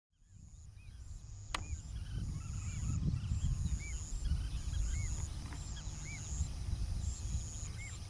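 Outdoor natural ambience: a low, uneven rumble, a steady high-pitched insect drone that pulses on and off, and short chirping bird calls about once a second. A single sharp click sounds about one and a half seconds in.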